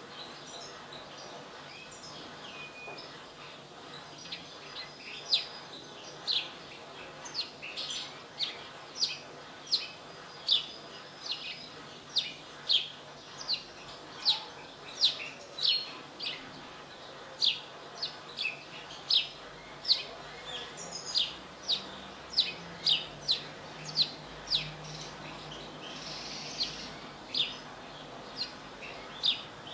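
European goldfinch giving short, sharp chirps, repeated about once a second and sometimes in quick pairs, starting a few seconds in.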